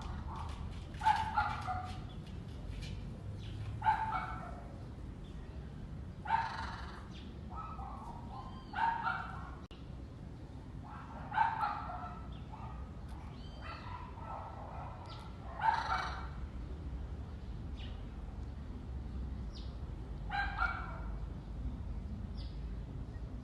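Parrot imitating a dog's bark: about seven short, sharp barks a few seconds apart, over a steady low hum.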